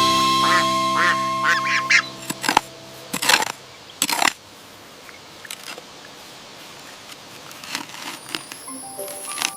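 A held music chord fades out over about two seconds while a series of short bird calls sounds over it. Three brief noisy bursts follow, then a low steady hiss.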